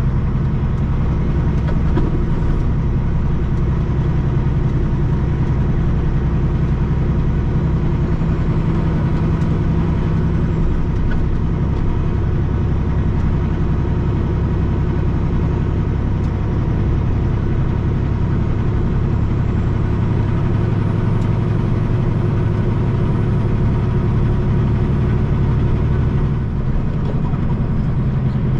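Semi-truck's diesel engine running steadily while cruising, heard from inside the cab as a constant low drone.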